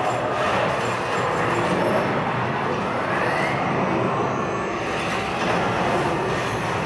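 Ambient sound design of an immersive projection-art installation: a steady, dense rumbling drone, with a tone sweeping upward about three seconds in.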